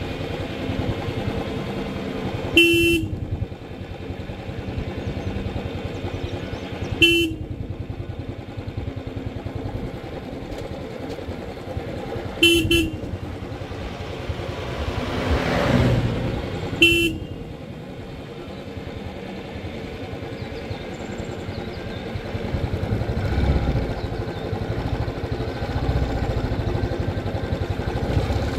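Royal Enfield Classic 350's single-cylinder engine running steadily on a downhill ride, with the horn sounded in short beeps four times, the third a quick double beep. A passing vehicle swells up and fades about halfway through.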